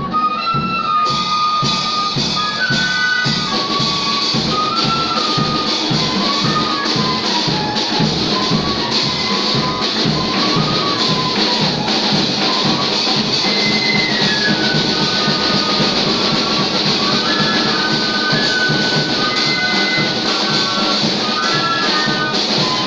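A band playing an instrumental piece: a lead melody over a steady drum beat.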